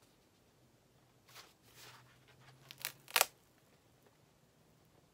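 Cardboard album jacket being handled, a few short rustles and scrapes, the loudest about three seconds in.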